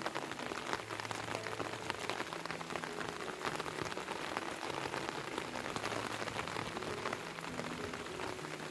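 Heavy rain falling steadily, a dense patter of drops on surfaces.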